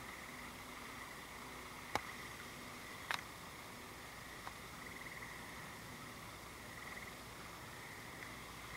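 Frogs trilling in a steady chorus, with two sharp knocks about two and three seconds in.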